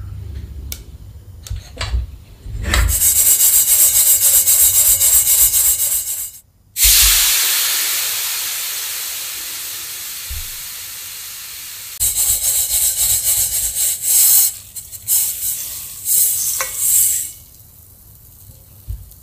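Sesame seeds dry-roasting in an iron frying pan. A few sharp pops come in the first two seconds as the seeds begin to crackle, followed by a loud rustling hiss of seeds moved across the hot pan. The hiss cuts off and returns, fading over several seconds, and near the end shorter uneven bursts come as the seeds are moved into a stainless steel bowl.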